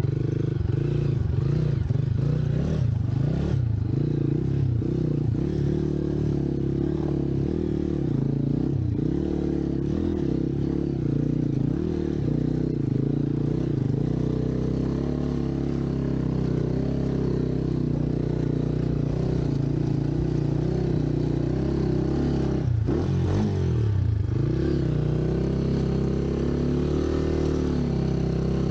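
Scrambler motorcycle engine running steadily under load, its revs rising and falling, with a sharp drop and climb in pitch about 23 seconds in.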